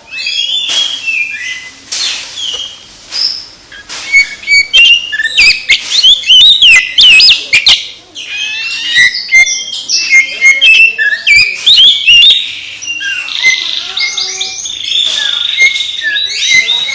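Oriental magpie-robin (kacer) singing a loud, varied song of whistled glides and rapid chattering trills, broken by sharp clicking notes.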